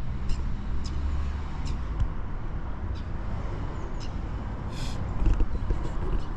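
Road traffic rumbling by on a town street, with footsteps about once a second and a short hiss from a vehicle's brakes near the end.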